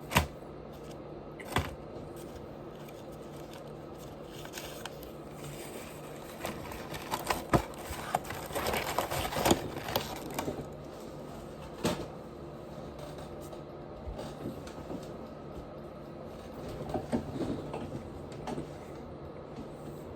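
Close-miked eating: chewing with sharp mouth clicks and smacks, a run of wet, crackly chewing in the middle and a shorter one near the end, over a low steady hum.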